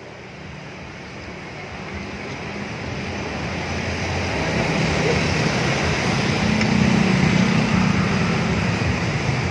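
Vehicle engine and traffic noise, a steady rumble that grows gradually louder.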